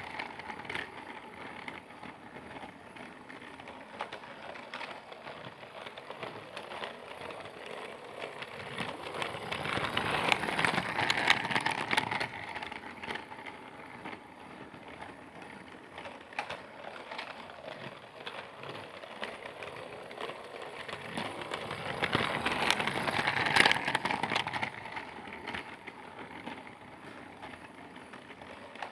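A motorised Percy toy train clattering along its track with a steady clicking rattle. It grows louder as it passes close twice, about ten seconds in and again near twenty-three seconds, then fades off.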